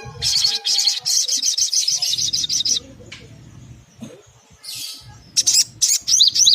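Sunbird song: a fast, high-pitched trill of rapid notes lasting about two and a half seconds, then after a pause a short run of sharp chirps near the end.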